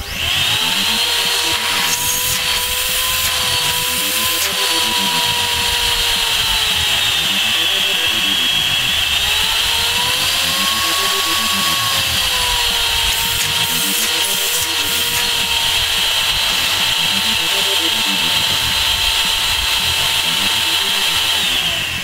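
Homemade vacuum cleaner, a motor salvaged from a scrapped vacuum cleaner in a wooden box, switched on and running at full suction: a loud, steady whine that starts abruptly. Its pitch dips and rises gently a few times, and it shuts off right at the end.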